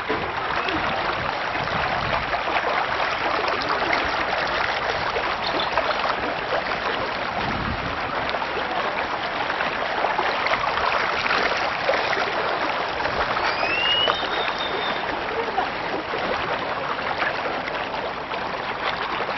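Steady rush of moving water, like a stream, with a brief high chirp about two-thirds of the way through.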